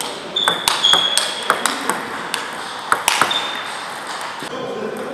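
Table tennis rally: the ball clicks sharply off rackets and table in a quick, irregular series that thins out after about three and a half seconds. There are a couple of short high squeaks about half a second and three seconds in.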